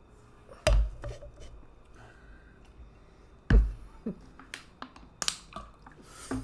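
Two heavy thuds about three seconds apart and several sharp clicks and taps: cans, bottles and cups being handled and set down on a table, with a short hiss near the end.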